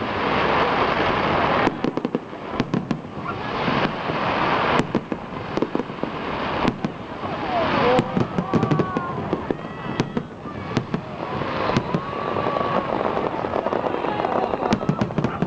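Aerial fireworks display going off continuously: many sharp bangs and cracks, thickest around two seconds in and again around eight seconds, over a steady rush of crackling bursts.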